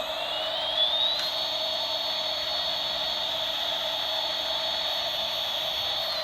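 Toy double-decker airliner's electronic jet-engine sound effect: a high whine that rises in pitch for about the first second, then holds steady over a hiss, and starts to wind down at the very end.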